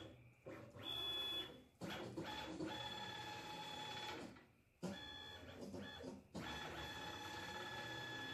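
Stepper motors of a homemade CNC machine whining as the gantry and carriage jog along their axes. The moves are a few seconds each with brief stops between them, and each move carries a steady high whine whose pitch differs from move to move.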